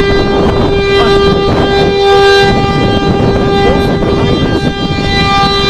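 Outdoor tornado warning siren sounding one steady pitch that swells and fades slightly, over a loud rushing noise of storm wind on the microphone.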